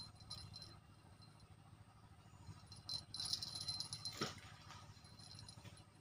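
A fishing cast with a rod and reel: the line hisses off the reel for about a second, ending in a sharp click, with light reel ticking early on under a low steady river rumble.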